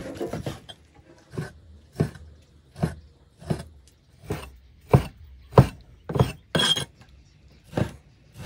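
Cleaver chopping cooked pork on a round wooden chopping board. About a dozen evenly spaced chops come roughly every two-thirds of a second, each a sharp knock of the blade through the meat into the wood.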